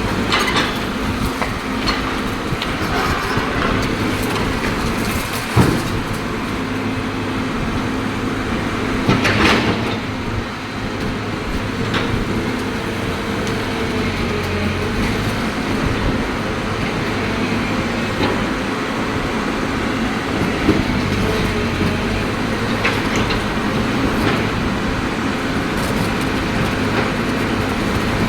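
Cat excavator's diesel engine running steadily under load, with a few sharp clanks and knocks of the machine working on concrete, the loudest about five and a half seconds in.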